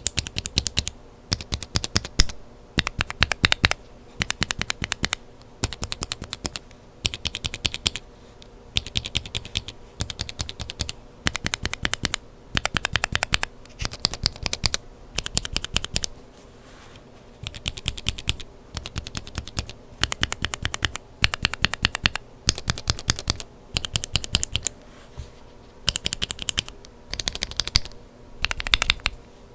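Mechanical keyboard switches with Kailh Burgundy stems lubed with 205g0, set in different housings, pressed and released rapidly. They come as short bursts of quick clacks, about sixteen bursts with brief pauses between them.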